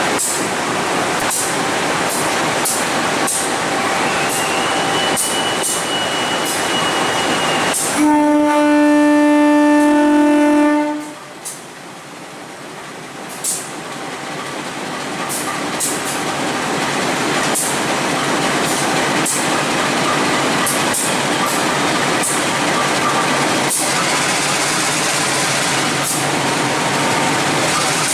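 KAI CC 203 diesel-electric locomotive rolling past with its engine running and regular clicks from the wheels on the rail. A thin high whine sounds for a couple of seconds, then the horn blows once for about three seconds, the loudest sound. After the horn the engine noise grows louder as the locomotive pulls away.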